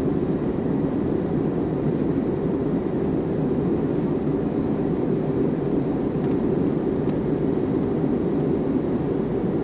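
Steady cabin roar of an Airbus A320-family airliner climbing after takeoff, heard from a window seat: jet engines at climb power and the rush of air past the fuselage, deep and unchanging. Two faint ticks show up about six and seven seconds in.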